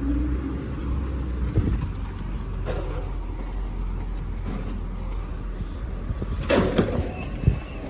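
Automated side-loader garbage truck idling with its hydraulics working as the arm lifts a cart, then a burst of clattering knocks about six and a half seconds in as the cart is tipped and emptied into the hopper.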